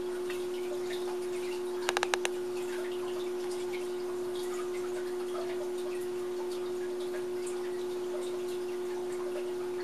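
A steady electrical hum from the quail chick brooder, with soft scattered ticks of coturnix quail chicks pecking and scratching in wood shavings. About two seconds in comes a quick run of about five sharp taps.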